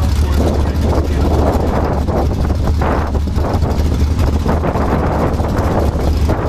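Drag race car engines running loudly and steadily, with wind buffeting the microphone.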